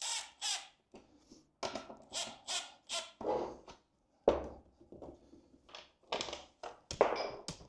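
Irregular knocks and scrapes of hand work on an HDPE plastic skid plate as bolts are forced into its holes: about a dozen short scraping strokes, with two sharper thunks about four and seven seconds in.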